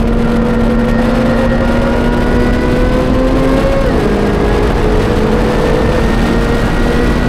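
High-performance sports car engine at full throttle on a race track, its pitch climbing slowly in a high gear. A quick upshift a little under four seconds in drops the pitch, and it then climbs again. A steady rush of wind and road noise runs underneath.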